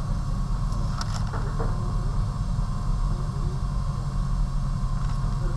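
A steady low background rumble, with a few faint light clicks and scratches of pencil on tracing paper about a second in.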